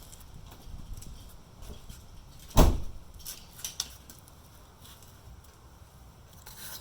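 A single heavy clunk about two and a half seconds in, followed by a few lighter clicks. It is the drivetrain of a Subaru Forester 2.5 XT automatic taking up as the shifter moves between park and reverse, which the owner puts down to a bad CV axle.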